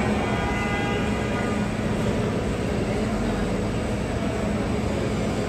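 Aircraft engines running with a steady drone and low hum. A higher whine fades out about a second and a half in.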